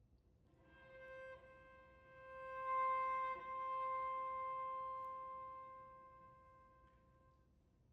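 Solo cello, bowed, holding a single high note that swells and then slowly fades away, with a brief catch near its loudest point.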